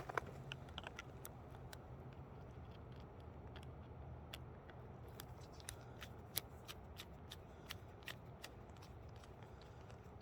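Faint, irregular small metal clicks and ticks of a screwdriver and pliers working the tiny screw and nut on a small-scale rail joint as it is tightened.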